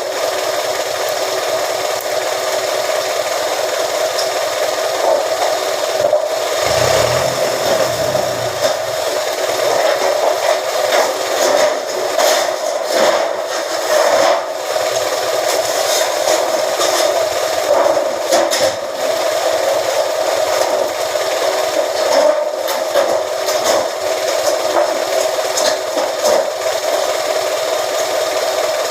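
A press machine flattening scrap iron: a steady mechanical drone from its drive, with irregular metallic knocks and rattles, and a low thud about seven seconds in.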